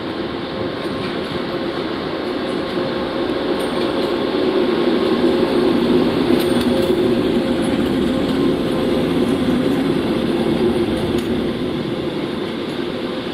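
TEP150 diesel passenger locomotive running light past at low speed, its diesel engine droning steadily. The sound builds to its loudest about halfway through as the locomotive comes closest, then eases off.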